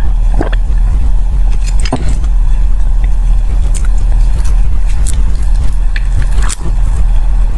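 A steady low rumble with a few short clicks and taps scattered over it: gulps of soy milk from a glass mug near the start, then chopsticks picking at sticky-rice zongzi.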